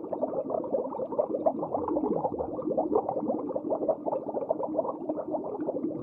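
A pod of dolphins chattering underwater: a dense, continuous stream of clicks and short squeaks, with a falling whistle about two seconds in.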